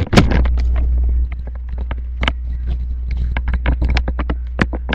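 Handling noise on the webcam microphone: a loud low rumble that starts and stops abruptly, with many sharp clicks and knocks from the cables and equipment being handled.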